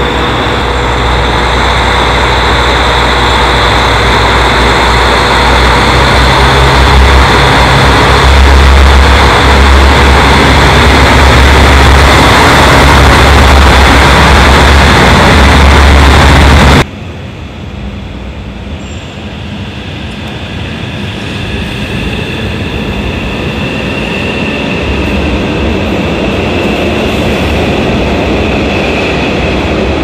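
Train running noise: a steady rumble with faint steady whining tones, loud until about halfway, where it cuts abruptly to a quieter train sound that slowly grows louder.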